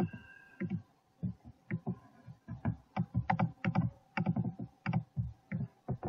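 Computer keyboard and mouse clicking in irregular runs of quick strokes, several a second.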